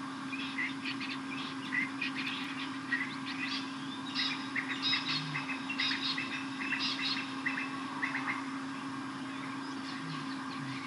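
Blacksmith lapwings calling: a rapid, uneven series of short, sharp, high notes, densest in the middle, the alarm they give when chased.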